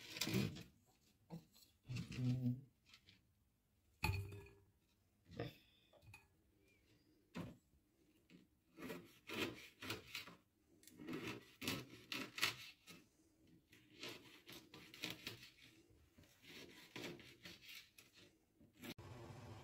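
Dry, crusty bread cubes being handled: irregular short crunches and scratchy rubbing sounds, faint, spread through the whole stretch.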